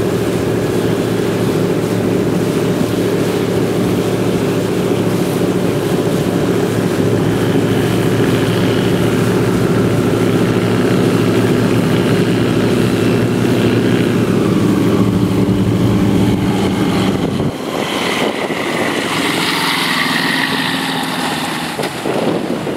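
Zenair CH-701 floatplane's engine and propeller running with a steady drone as it flies low over the water. About three quarters through, the low drone drops away suddenly, leaving a noisier hiss as the floats touch down on the water.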